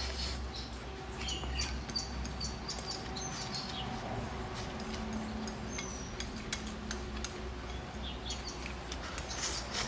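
Close-up eating sounds: noodles slurped from a bowl and chewed, with many wet mouth clicks and short squeaky slurps. A low steady hum runs underneath.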